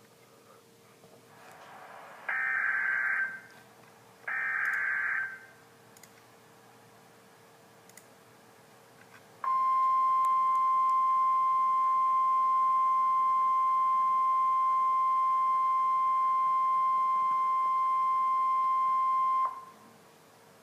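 NOAA Weather Radio emergency alert signal: two short, harsh, screechy bursts of SAME header data about a second long each, a second apart, then the steady 1050 Hz weather radio warning alarm tone held for about ten seconds before it cuts off, announcing that a warning message follows.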